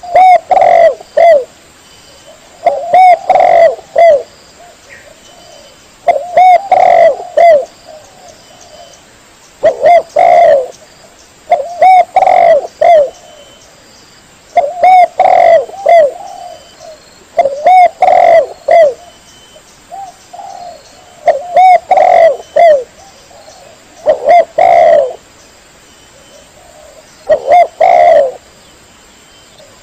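Spotted dove (tekukur) cooing: a loud recorded call of short phrases of a few coos each, repeated every three to four seconds, about nine times.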